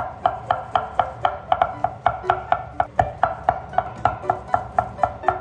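A chef's knife chopping mushrooms on a thick wooden cutting board: quick, even knocks of the blade on the wood, about four or five a second, as the mushrooms are minced fine.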